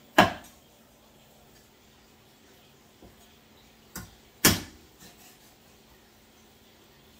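Cleaver chopping raw meat on a cutting board: a hard chop just after the start, a light tap about four seconds in, then another hard chop half a second later.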